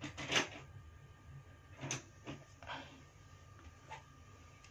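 Pages of a paperback photo book being handled and turned: a few soft paper rustles and brushes, the clearest about two seconds in.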